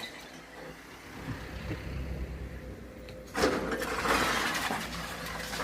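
Excavator engine running with a low rumble, then a little past halfway a sudden loud crunching and clattering of concrete and debris as the machine breaks up the building.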